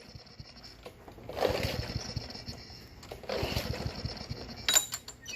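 Walk-behind lawn mower's overhead-valve engine being pull-started twice: the recoil rope whirs and the engine cranks over for about a second each time but does not fire. The owner puts the hard starting down to the crankcase being badly overfilled with oil.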